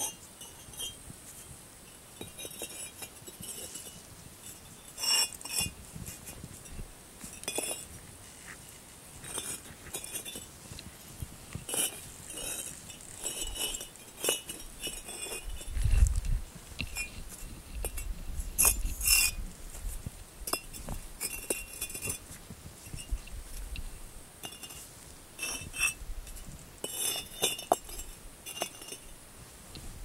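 Refractory firebricks being dry-stacked by hand, hard ceramic bricks clinking and knocking against one another in irregular short clicks. About halfway through comes a heavier thud, followed by several seconds of low rumble.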